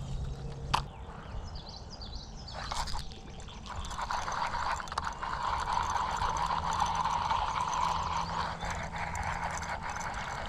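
Fishing reel being cranked to retrieve line: a steady, finely clicking whirr that starts about four seconds in and runs on, after a single click and a short rustle earlier.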